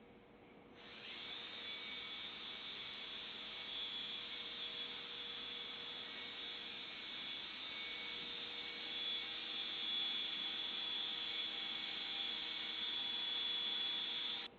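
An electric power tool's motor spins up and runs steadily with a high whine, then stops abruptly.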